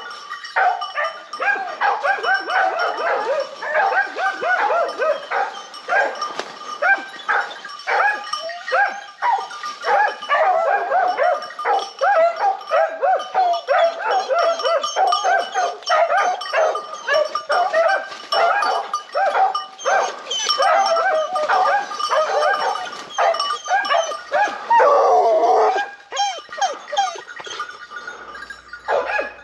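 Hunting hounds baying without a break, many short overlapping yelps and bays, with one longer drawn-out cry near the end: a pack giving tongue on the scent of wild boar during a driven hunt.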